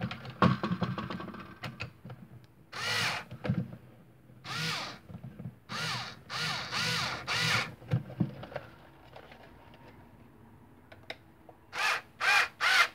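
Small cordless electric screwdriver driving a screw into a 3D-printed plastic part in short bursts, each a brief whine that rises and falls in pitch. There are six bursts between about three and eight seconds in, then a quick run of three near the end.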